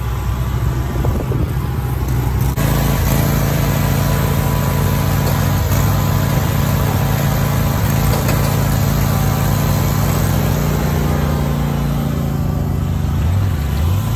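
Toro zero-turn riding mower's engine running steadily under way, getting louder about two and a half seconds in, with its pitch wavering near the end.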